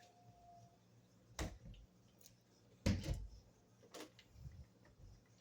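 A few separate knocks or clunks, the loudest about three seconds in, with a faint short beep-like tone at the start.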